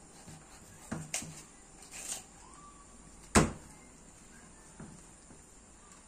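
Butcher's knife and a raw chicken knocking against a stainless steel table while the bird is cut up and deboned: a couple of light knocks about a second in, and one sharp, loud knock about three and a half seconds in.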